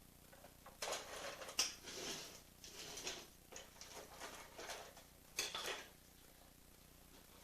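Peppers being picked up and dropped into baskets during sorting: irregular bursts of rustling and light clatter, with one sharp click about a second and a half in.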